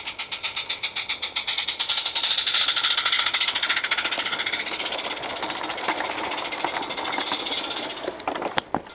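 Garden-railway model steam locomotive and coaches running past on the track with a rapid, even beat, loudest as the train passes close, then fading. A few sharp clicks near the end.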